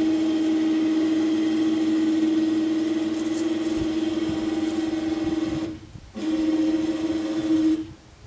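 Electric ATV winch motor running with a steady hum while lowering a 205-pound aluminum boat off a truck rack. It stops briefly about six seconds in, runs again, then cuts off near the end.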